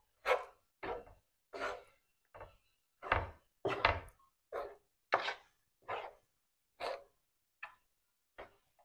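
Wooden spoon scraping and knocking against a large metal pan as it turns a panful of rice, in regular strokes about one every two-thirds of a second.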